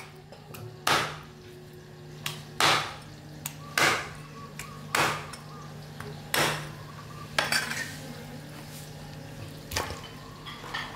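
A cleaver chopping a snake's body into chunks on a plastic cutting board, a sharp chop every second or so.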